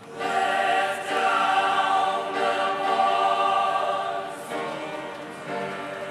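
Mixed high-school choir singing held chords in phrases. It comes in loudly at the start and eases down over the last two seconds.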